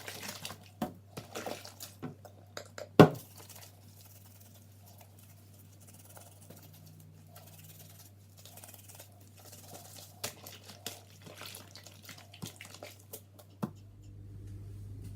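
Wet cleaning cloths being handled in soapy water: small squelches, drips and clicks, with one sharp knock about three seconds in, over a steady low hum.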